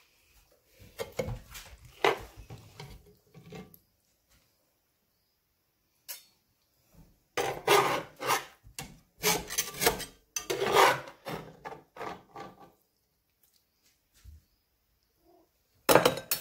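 A metal spatula and knife scrape against the inside of a cast iron Dutch oven as a piece of lasagna is cut and lifted out. The scraping comes in two main spells with a quiet gap between them, and a short burst near the end.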